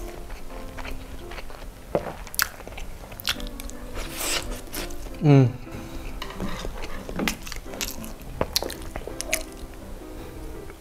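Close-up chewing and biting of Spam luncheon meat and noodles, with small wet mouth clicks, over soft background music. About five seconds in comes one short, loud voiced sound from the eater.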